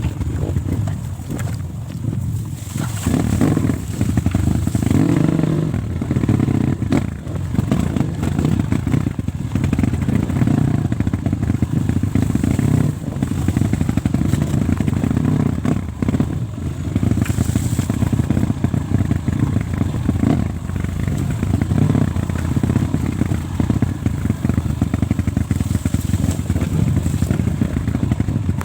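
Dirt bike engine running, its level swelling and dipping throughout, with occasional sharp clicks.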